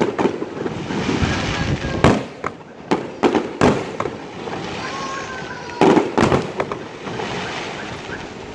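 Aerial fireworks shells bursting: sharp bangs in clusters about two to four seconds in and again about six seconds in, with crackling between them.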